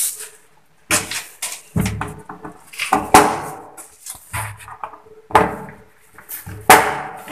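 Plastic flush-cistern cover being pushed and settled into place by hand: a run of separate sharp plastic knocks and scrapes, about six in all, with short pauses between them.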